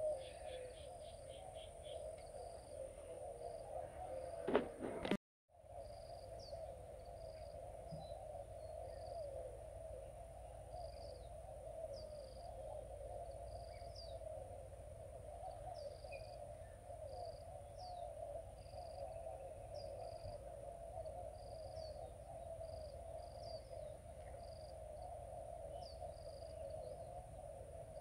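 Riverbank outdoor ambience of wildlife: a steady low chorus of calling animals, a thin high insect whine, and a short chirp repeating about once a second. A brief loud knock about four and a half seconds in, then the sound cuts out for a moment.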